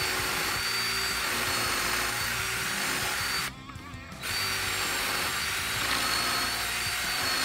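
Cordless drill with a pocket-hole step bit boring into treated lumber through a pocket-hole jig, running at a steady speed with a high whine. It stops about three and a half seconds in, then starts again for a second hole.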